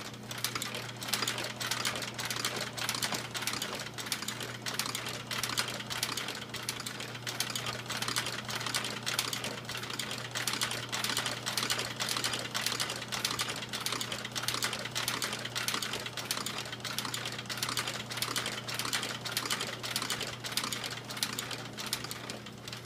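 American Straight Needle industrial leather sewing machine stitching through boot leather: a fast, even clatter of needle strokes over a steady motor hum.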